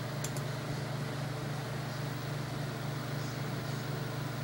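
Steady low mechanical hum of room background noise, with two quick faint clicks close together just after the start.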